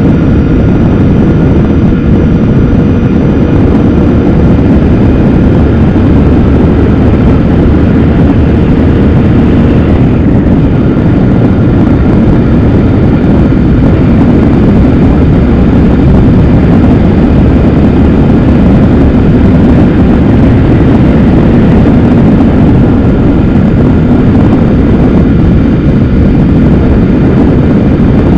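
Motorcycle riding steadily at road speed: loud, even engine and wind rush on the mount-level microphone, with no change in pace.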